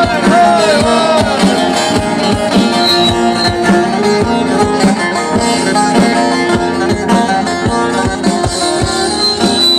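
Live Turkish folk music played between sung verses: a plucked string instrument carries the tune over a steady drum beat. A sung line trails off in the first second.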